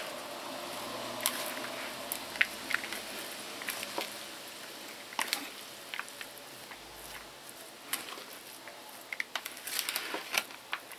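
Finely grated carrot dressed with oil and vinegar being tossed with two plastic spoons in a plastic bowl: soft wet squishing with scattered light clicks and scrapes of the spoons against the bowl, more frequent near the end.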